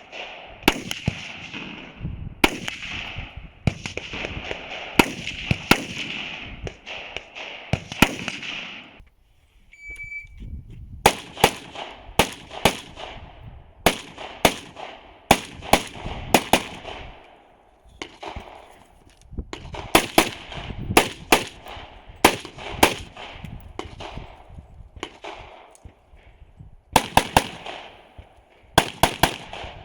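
Strings of rapid semi-automatic gunfire from a practical shooting stage, the shots coming in quick runs with short breaks between them. About ten seconds in, after a brief lull, a shot timer gives its short start beep and a new run of fast shots begins. Another timer beep sounds at the very end.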